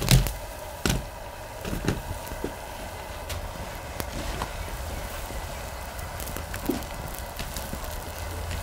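Instant noodle broth boiling in a large pan, with a steady low bubbling and faint crackles. A few knocks in the first two seconds, the first the loudest, as the noodle blocks are handled.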